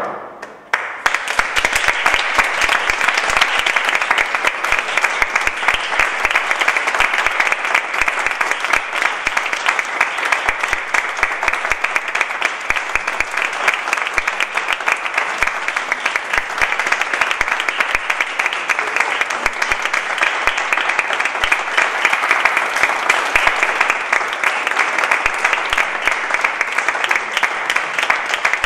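Audience applauding, many people clapping steadily after a sudden start.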